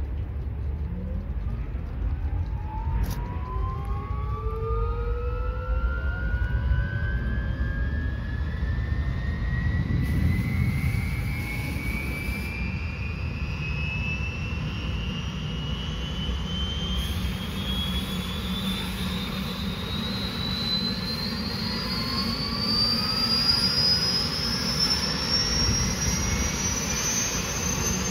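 Bell UH-1D Huey helicopter's turboshaft engine starting up: a whine rises steadily in pitch as the turbine spools up, over a low rumble, while the main rotor begins to turn.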